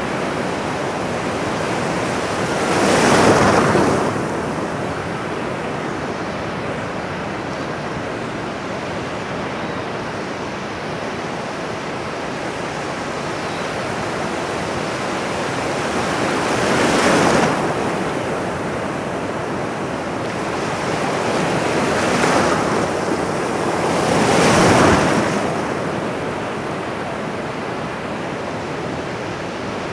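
Ocean surf washing steadily, with four louder waves swelling and fading as they break: one a few seconds in and three more in the second half.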